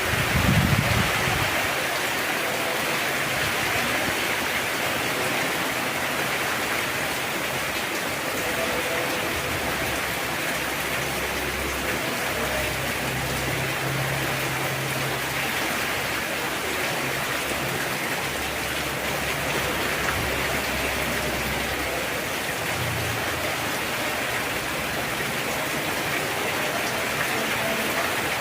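Heavy rain pouring steadily, a dense even hiss of drops, with a brief low rumble in the first second.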